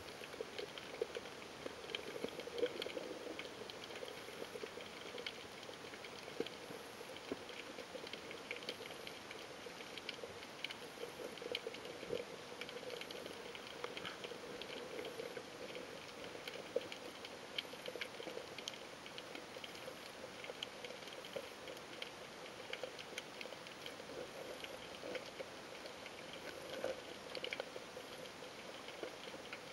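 Underwater ambience picked up through a camera housing: a steady crackle of many faint, irregular clicks and pops over a faint low hum.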